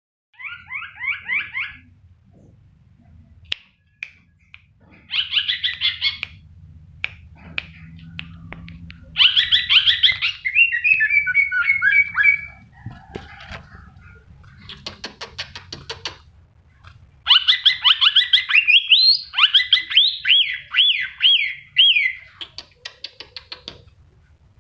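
A songbird singing in several bouts of fast, repeated chirping notes, many of them quick downward sweeps, with pauses between bouts. A faint low hum runs underneath.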